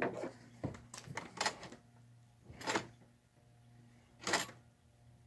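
Paracord pull cable being worked through its pad eyes to trip the Motorguide Xi3 bow mount's pedal release: a run of short scrapes and knocks, about six of them, irregularly spaced.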